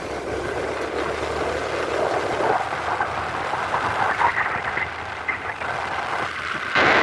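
Motor scooter riding along a road, its engine and road noise mixed with wind on the microphone, getting suddenly louder near the end.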